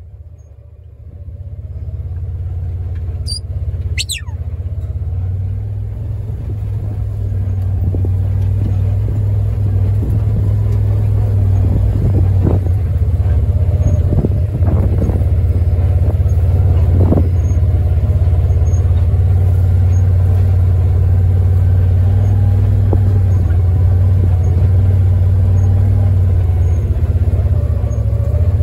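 Engine of a farm vehicle running steadily, a low hum that builds over the first couple of seconds and then holds, with a few knocks and rattles in the middle. Two brief high falling whistles sound about three to four seconds in.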